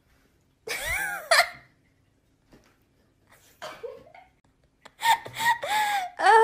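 High-pitched laughter in short spells: a burst about a second in, a brief one near the four-second mark, and a longer, louder run of giggling from about five seconds on.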